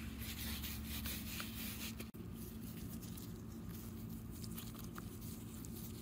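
A gloved hand rubbing flour across a plastic baking mat: a dry brushing rub for about two seconds. It cuts off abruptly, and quieter handling follows, with a few faint ticks over a steady low hum.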